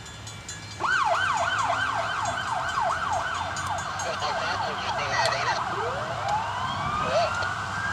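Emergency vehicle siren sounding in a fast yelp, about three sweeps a second, then a slow rising wail beginning about six seconds in.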